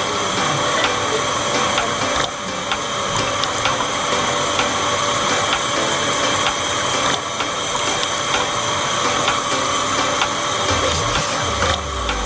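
A small homemade motor-driven machine running steadily, with a gear whine and a rapid rattle of small clicks. A deeper hum comes in near the end.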